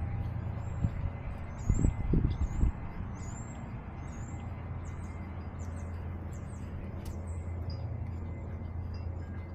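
Songbirds chirping in a run of short, high notes that fall in pitch, over a steady low rumble on the body-worn camera's microphone. A few dull thumps come about two seconds in.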